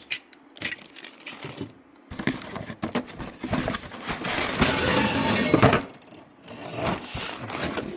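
Small diesel-heater accessories, muffler, clamps and fittings, clinking and clattering as they are handled and unpacked. There are scattered clicks, with a denser, louder stretch of rattling in the middle.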